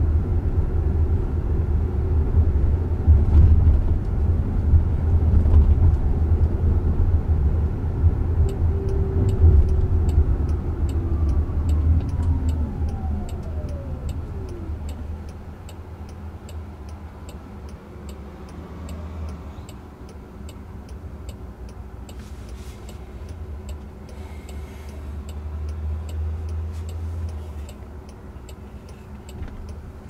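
Inside an electric Jaguar I-PACE: road and tyre rumble, with a falling motor whine as the car slows to a stop. A steady ticking turn signal begins partway through, for a right turn, over the quieter rumble.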